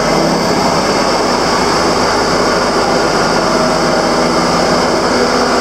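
Heavy earthmoving construction machine's engine running steadily at the roadworks: a loud, even mechanical noise.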